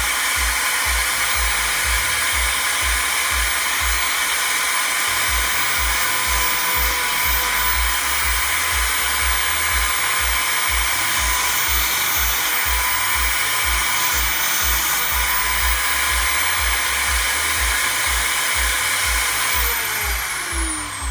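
A small high-speed electric sanding tool with a drum sanding coffee-bag composite knife handle scales: a steady high whine with the hiss of abrasive on the material. Near the end it is switched off and winds down, its pitch falling.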